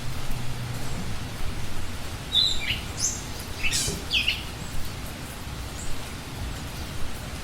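Steady rush of falling water, with a few short, high bird chirps around the middle.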